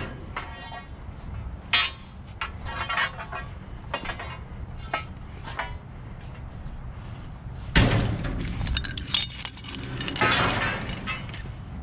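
Scattered metal clanks and clinks of scrap steel tennis-court poles being handled and loaded, with one heavy bang about eight seconds in.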